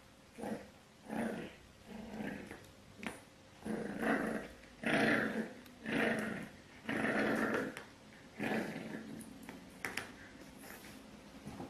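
A pet animal growling in a series of short, rough bursts, about a dozen in all, the longest and loudest ones near the middle.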